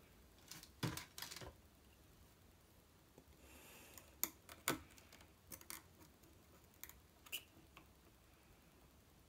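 A few light, sharp clicks and taps of a small metal pick tool and wire against a potentiometer's metal casing, in a cluster about a second in and then singly through the middle, with a brief faint hiss just before the second group.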